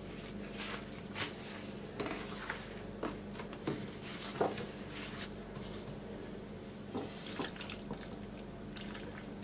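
Soft scattered rustles and light ticks of thin yufka pastry sheets being lifted and laid out by hand on a wooden cutting board, over a faint steady hum.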